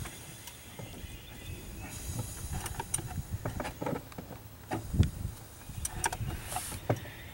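Hand ratchet clicking in short, irregular runs as a Cummins 6.7 diesel is turned over slowly by hand toward top dead center, with a low knock about five seconds in.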